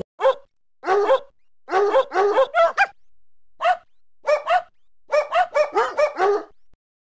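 A small dog barking: quick runs of short, high-pitched yaps in groups of two to six, with brief silences between the groups.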